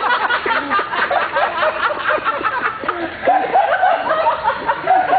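Several men laughing and hooting together, loud and overlapping.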